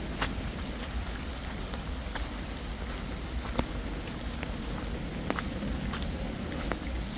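Someone pushing on foot through woodland undergrowth: steady rustling and handling noise with scattered sharp ticks and snaps, about one or two a second.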